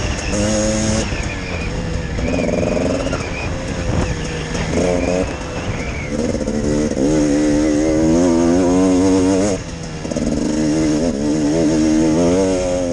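Dirt bike engine running hard while ridden off-road, its revs rising and falling over and over as the throttle is worked. About three-quarters of the way through, the sound briefly drops as the throttle is shut, then picks up again.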